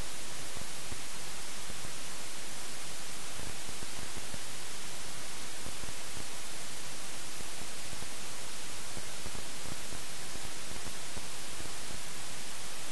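Steady static hiss with nothing else in it, brightest in the high range. This is the sign of a failed camera audio recording that picked up only noise.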